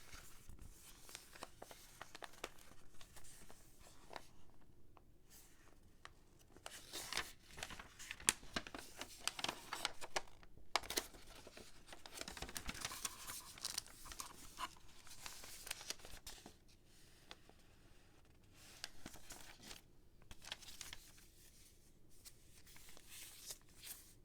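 Toy packaging being opened by hand: cardboard and plastic tearing and crinkling in irregular bursts, busiest in the middle, with short quieter pauses.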